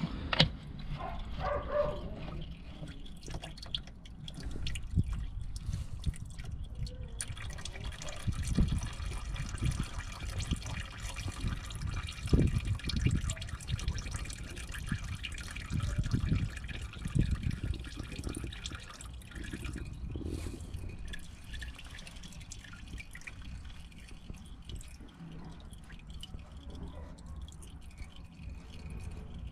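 Engine oil pouring and dripping, with a few dull knocks.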